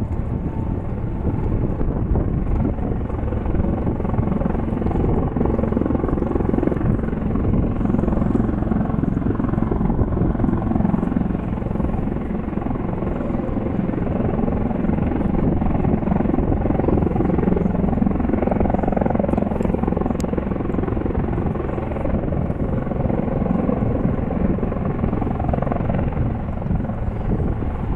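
Two Royal Navy display helicopters flying together in formation, their rotors and turbine engines making a steady noise.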